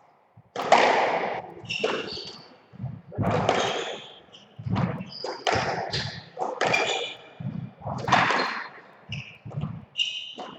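Squash rally: the ball is struck by rackets and hits the court walls with sharp thwacks about once a second, with shoes squeaking briefly on the wooden floor between shots.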